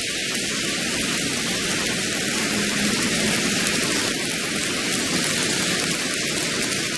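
Applause from a men's choir: many hands clapping in a dense, steady patter.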